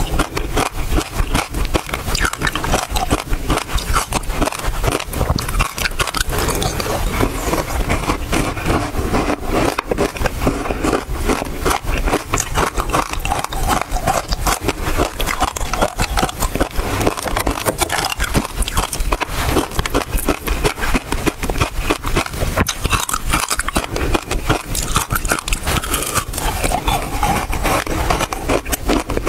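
Close-miked crunching and chewing of ice frozen with basil seeds: a dense, continuous run of sharp cracks and crackles.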